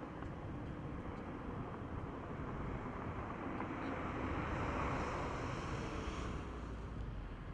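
Seat Ibiza Cupra (6P) on its stock exhaust, running with a steady mix of engine and road noise that swells a little about halfway through and eases off again near the end.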